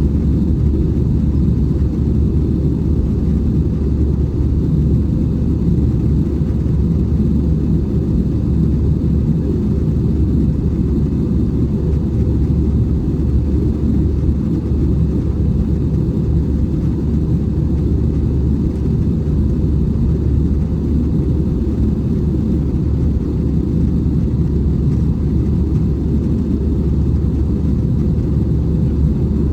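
Steady, even low rumble of an Airbus A320 airliner in flight, heard from inside the passenger cabin.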